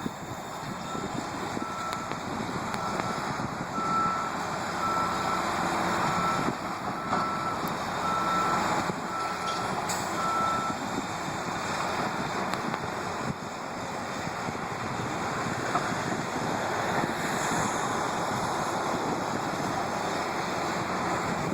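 A construction machine's backup alarm beeps in a single steady tone about once a second, then stops about halfway through. Heavy diesel machinery keeps running under it.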